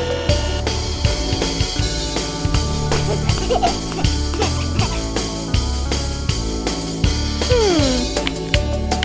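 Upbeat cartoon background music with a drum-kit beat, with a falling tone sliding down in pitch about a second before the end.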